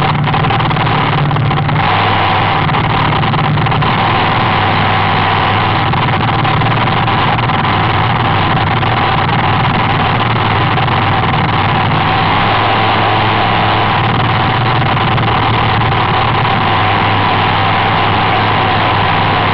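Hydroplane racing boat's engine running steadily and loud, a constant high drone over a low rumble.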